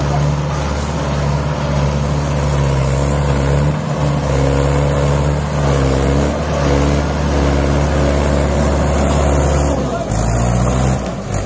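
Mahindra 575 DI tractor's four-cylinder diesel engine pulling a fully loaded trolley, running steadily under load with a deep, even engine note. About ten seconds in, the note drops and changes.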